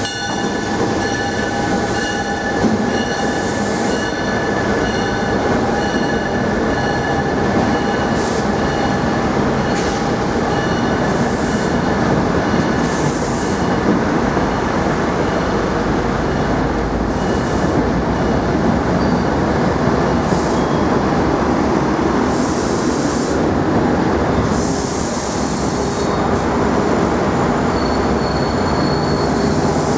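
A passenger train moving through a station close by, with a loud, steady rumble of wheels on rail. A steady high whine fades away over the first several seconds, and short high-pitched squeals come every one to three seconds.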